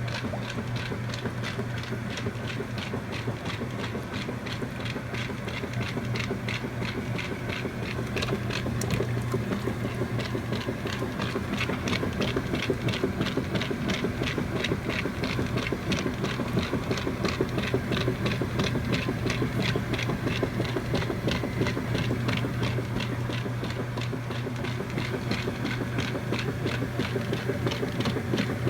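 Kenmore 80 Series top-load washing machine running: a steady hum with a fast, even rhythmic ticking over it, getting louder about eight seconds in.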